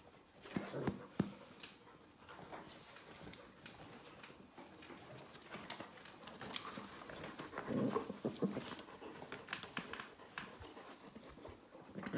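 Several dogs jostling and clambering onto a person's lap: scuffling and rustling with small dog noises, louder about half a second in and again around eight seconds.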